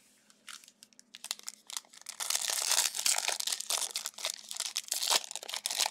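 Plastic wrapper of a Donruss basketball trading-card pack crinkling and tearing as it is opened by hand: a few light crackles at first, then dense crinkling from about two seconds in.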